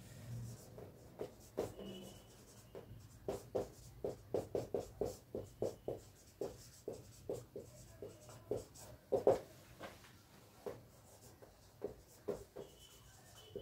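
Marker pen writing on a whiteboard: a quick, irregular run of short strokes and taps, busiest in the middle.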